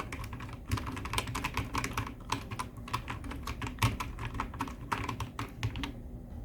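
Rapid, irregular typing on a full-size mechanical keyboard with red (linear) switches: a fast clatter of key presses that stops about six seconds in.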